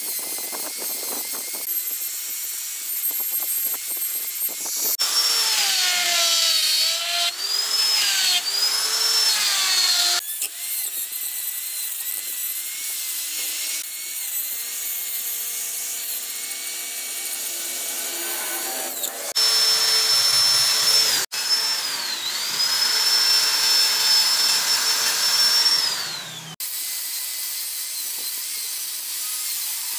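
Handheld electric rotary carving tool with a burr bit grinding into wood. Its motor gives a high whine that dips in pitch and recovers as the bit bites, over the rasp of the cut. The sound changes character abruptly several times.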